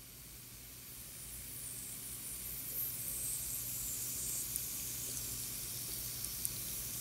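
Dry porous crushed-rock top dressing in a potted succulent sizzling as water soaks in: air being pushed out of the rock by the water. A soft high hiss swells over the first few seconds and then holds steady, with a few faint ticks near the end.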